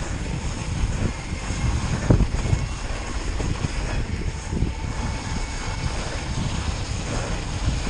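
Mountain bike descending a snow track at speed, heard from a camera on the bike: a continuous low rumble of wind buffeting and tyres on snow, with irregular knocks from the bike, the strongest about two seconds in.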